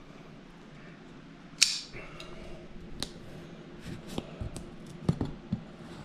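Opening a cardboard shipping box by hand: a sharp click or snap about one and a half seconds in, then scattered clicks, knocks and handling noises of the box.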